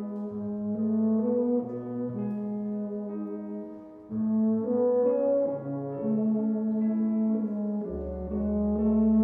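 Concert wind band playing with a euphonium soloist: a melody of held brass notes over band accompaniment. The sound dips briefly about four seconds in, then comes back in loud, and low bass notes enter near the end.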